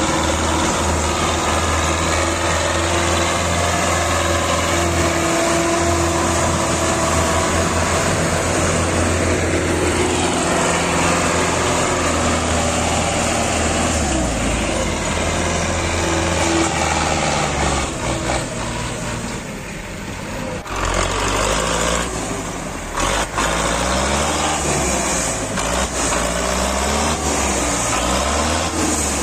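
A small motor running steadily, driving a miniature model tractor that pulls a plough through sand. Its pitch shifts in steps, and it dips in level and wavers about two-thirds of the way through.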